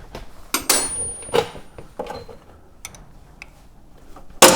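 Scattered knocks and clicks of hand tools and plastic bodywork being handled while a motorcycle front mudguard is unscrewed, ending in one loud clatter near the end.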